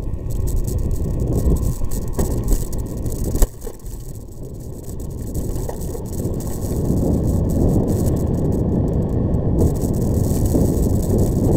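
Vehicle driving over a rough gravel and dirt track: a steady rumble of wheels on gravel with rattling and bumps. A sharp knock comes about three and a half seconds in, then it runs quieter for a couple of seconds before building up again.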